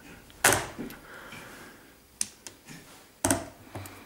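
A hand-cranked drill with a screwdriver bit driving a wood screw into wood: a few sharp clicks and knocks, the loudest about half a second in and another about three seconds in, with lighter ticks between.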